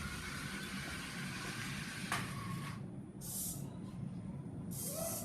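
Small DC gear motors of a robot car whirring as it drives itself in obstacle-avoidance mode. There is one run of about three seconds with a click about two seconds in, then two short bursts.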